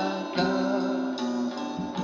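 Recorded instrumental backing music with a steady beat and sustained chords, played back over a loudspeaker.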